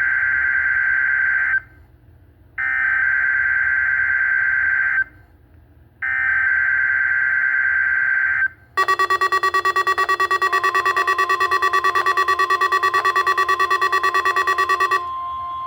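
NOAA Weather Radio SAME alert-header data bursts: three screeching digital bursts of about two and a half seconds each, with short gaps between them, marking a Required Weekly Test. These are followed by about six seconds of a loud, rapidly pulsing electronic alarm beep from the weather radio, and then a quieter steady tone near the end.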